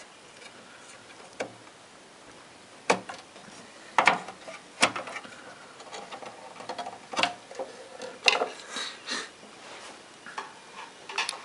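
Sharp, irregular clicks and knocks of a RAM stick being unlatched and pulled from its motherboard slot in an open desktop PC case, about half a dozen in all.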